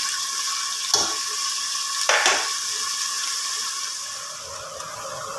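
Sliced onions sizzling in hot oil in a pressure cooker as they are fried until lightly browned, a steady hiss. A spatula is stirred through them and strikes the pot twice, about one and two seconds in.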